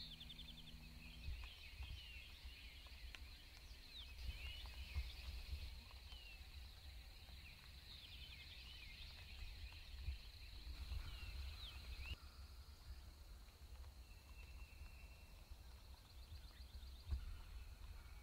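Faint songbirds chirping and trilling, with a low wind rumble on the microphone and a steady high tone that cuts off about twelve seconds in.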